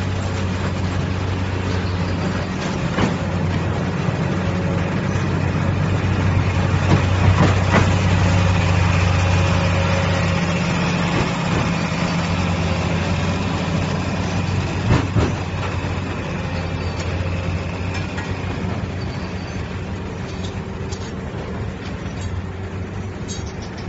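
Heavy engine of a railway track construction machine running steadily with a low hum, with a few sharp metallic knocks over it.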